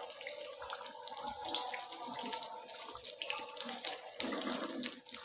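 Battered eggplant pakoras sizzling in hot oil in an iron karahi, a steady fizz dotted with small crackling pops.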